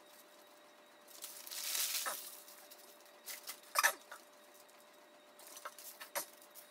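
Crinkling of foil and paper food wrappings for about a second, followed by scattered small clicks and knocks of food and a bottle being handled at a table, the sharpest a little past halfway.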